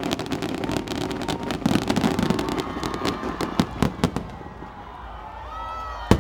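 Fireworks crackling and popping in a dense rapid string for about four seconds, then thinning out, with one sharp loud bang near the end.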